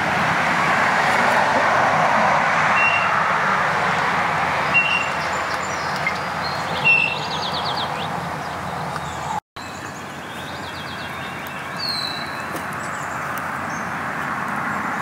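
Steady rushing background noise, with a short high chirp repeating about every two seconds in the first half and a few faint bird calls later.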